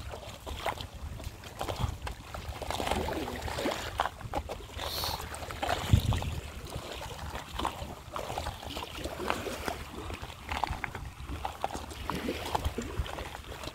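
Irregular splashing and sloshing of shallow water, as from someone wading, over a low rumble of wind on the microphone.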